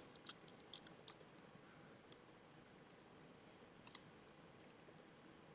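Faint, irregular computer mouse and keyboard clicks against near silence, some single and some in quick runs of two or three.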